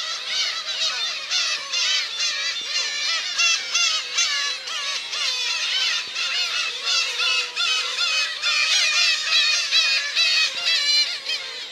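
Dense chorus of many black-tailed gulls calling together at a breeding colony, countless short overlapping cries that bend up and down in pitch.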